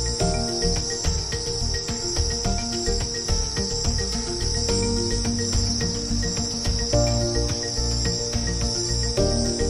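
Crickets chirring in a steady, high-pitched chorus, over low held tones that shift every so often.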